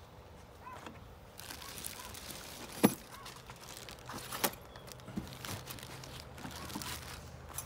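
Plastic wrapping crinkling and rustling as a bagged chainsaw is lifted and handled in its cardboard box. A sharp knock comes about three seconds in, and a smaller one about a second and a half later.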